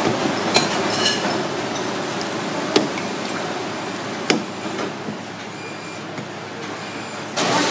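A few sharp knocks of a knife and cleaver striking a lobster's shell and the wooden chopping block beneath, spaced a second or two apart, over steady background noise that grows louder near the end.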